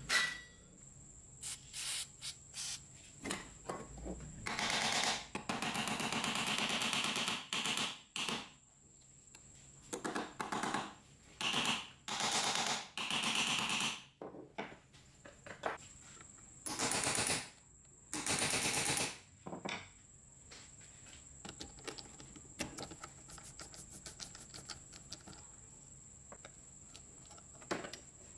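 Aerosol spray can hissing in several bursts of one to three seconds onto a grease-caked old grinder housing, between runs of quick small clicks and scratches.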